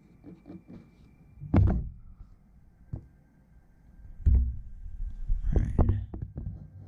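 Dull knocks and thumps of hand and pen being handled on a drawing table: one about a second and a half in, one a little after four seconds, and a short cluster near the end. In the first second there are faint scratches of a Micron fineliner pen on paper.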